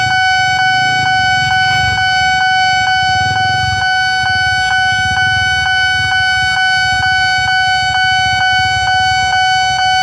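Japanese-style electronic level-crossing warning siren sounding: a steady ringing tone that pulses about three times a second, with a low traffic rumble beneath.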